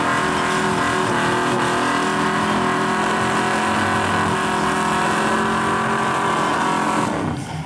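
Red mid-1990s Ford Ranger pickup doing a burnout: its engine is held at high, steady revs while the rear tyres spin in the smoke. The sound breaks off about seven seconds in.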